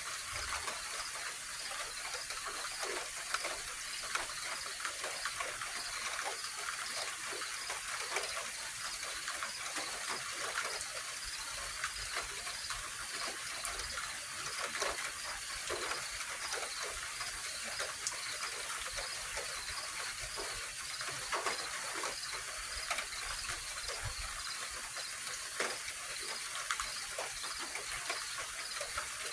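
Steady outdoor night ambience: an even hiss of water, likely light rain, with scattered faint ticks, under a high, evenly pulsing chirr of insects.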